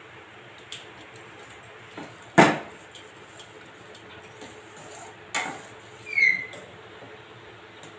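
A metal spoon knocking and scraping against a steel kadai as ragi porridge is stirred to keep it from sticking to the bottom. There is a sharp clink about two and a half seconds in, a second knock about five and a half seconds in, and a short high squeak falling in pitch just after six seconds.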